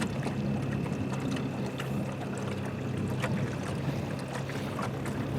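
A small fishing boat's motor running steadily at low speed, a continuous hum with scattered light clicks over it.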